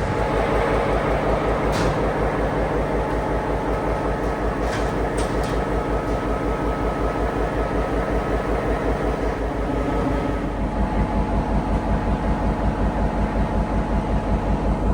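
Passenger train sound: a steady rhythmic pulsing of about four beats a second that grows stronger about ten seconds in, with a few brief clicks.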